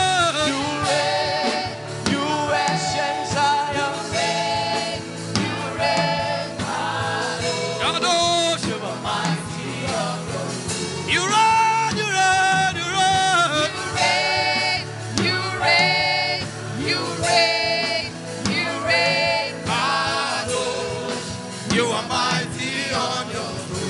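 Gospel worship music: voices singing over a steady instrumental accompaniment.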